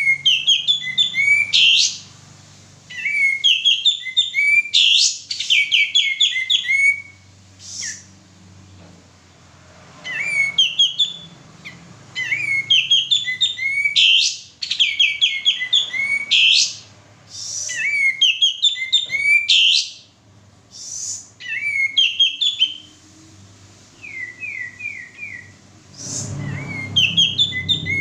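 Male kapas tembak singing energetically in repeated bursts of rapid chirping, whistled notes, a new phrase every couple of seconds.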